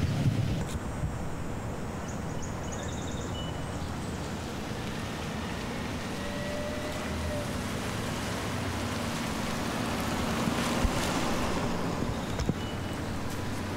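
Outdoor wind on the microphone as a steady rumble and hiss, with a few faint high chirps about two to three seconds in and a few light clicks.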